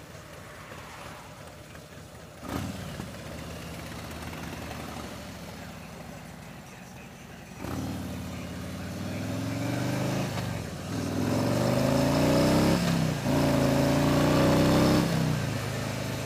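2017 Harley-Davidson Street Glide Special's Milwaukee-Eight 107 V-twin running at low revs, with a sudden knock about two and a half seconds in. About halfway through the bike pulls away: the engine note climbs in pitch three times, dropping briefly between pulls as it shifts up through the gears, and eases off near the end.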